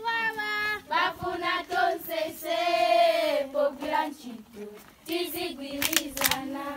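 A group of schoolgirls singing together, with a longer held note near the middle and two sharp hand claps near the end.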